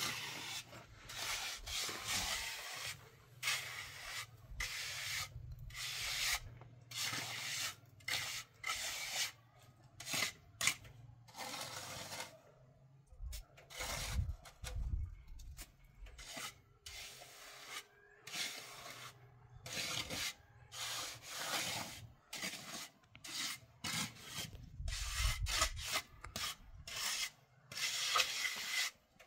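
Rough scraping strokes in irregular quick succession, with short pauses between runs.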